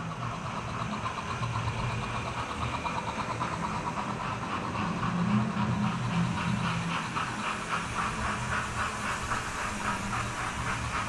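Model trains running on a layout: a steady electric-motor hum with a fast, even clicking that gets a little louder about halfway through.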